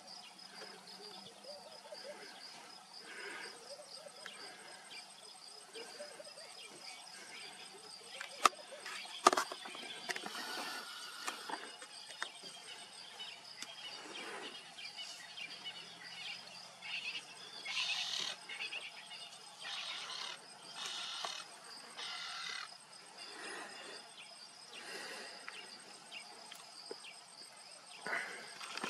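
Insects chirring steadily with a high, even pulsing tone. There are scattered short rustling bursts, and two sharp clicks under a second apart about eight to nine seconds in.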